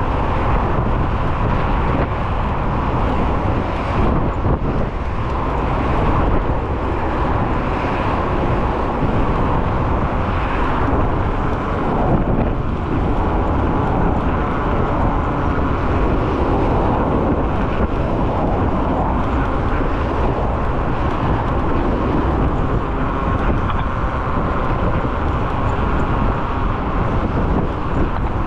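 Steady rush of wind over the microphone and rolling road noise from a moving scooter, with car traffic passing alongside.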